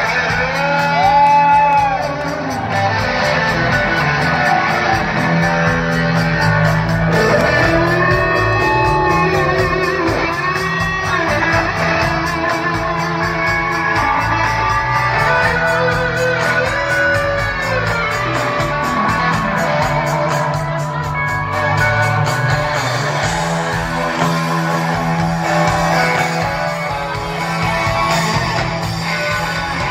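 Live rock band playing loud, led by an electric guitar whose notes bend up and down in pitch, over a steady low accompaniment that fills the hall.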